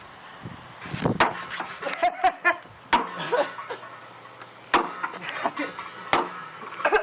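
RMJ Tactical Berserker tomahawk hacking into the sheet-steel shell of a water heater: a series of sharp blows, roughly one every one and a half to two seconds.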